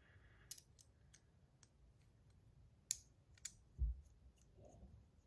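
A handful of sharp, faint clicks from a fidget spinner's buttons being handled and fitted onto the spinner, with a soft thump about two-thirds of the way through.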